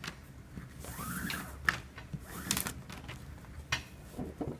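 Nylon paracord being handled and pulled through loops by hand, with soft swishing rubs and a few light ticks.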